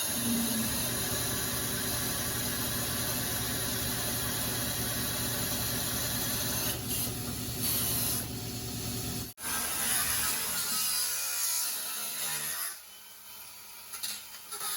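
Metal-shaping power hammer running steadily with rapid, continuous blows as a sheet-metal panel is steered through it. It cuts off abruptly just after 9 s, and the sound is quieter after about 13 s.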